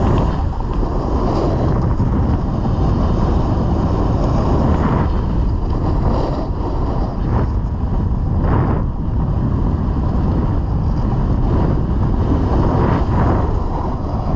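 Loud, steady wind rush buffeting a GoPro microphone while riding down a groomed slope, mixed with the hiss of a snowboard sliding on packed snow that swells briefly a few times as the edge digs in on turns.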